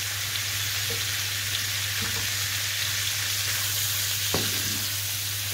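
Meat pieces sizzling as they fry in a hot pan, stirred with a wooden spatula, with a sharp knock of the spatula about four seconds in. A steady low hum runs underneath.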